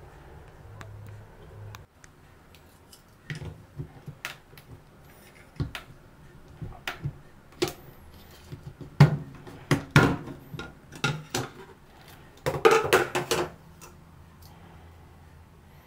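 Plastic clicks, knocks and rattles as a louvered plastic vent grille is worked off its frame by hand and with a small tool. The clicks are scattered at first, grow louder around the middle, and end in a short dense clatter near the end.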